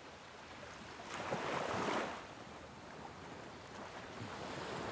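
Ocean waves washing as a steady rushing sound. One wave swells louder about a second in and falls away after two seconds.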